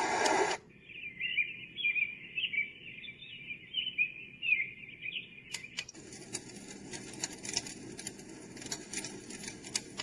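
A white-noise sleep machine playing its tracks one after another. A steady noise track cuts off just after the start, a birdsong track of chirping plays for about five seconds, and then, after a couple of sharp clicks, a crackling track of irregular clicks over a soft hiss begins.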